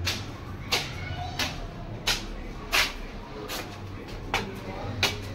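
Footsteps climbing stairs, a step about every two-thirds of a second, about eight steps in all.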